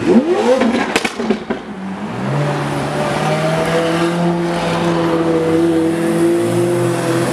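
A sports car's engine revving hard as it drives past, the pitch sweeping sharply upward, with a few sharp exhaust pops about a second in. From about two seconds in, a steady engine note holds.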